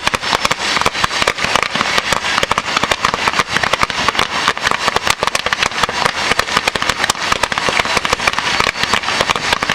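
Fireworks barrage fired from the ground, shooting off an unbroken rapid stream of shots, many a second, heard close by as dense crackling pops.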